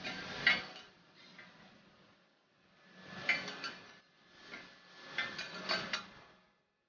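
Steel spatulas scraping and clinking across a stainless-steel teppanyaki griddle, in three short passes with sharp metal clicks.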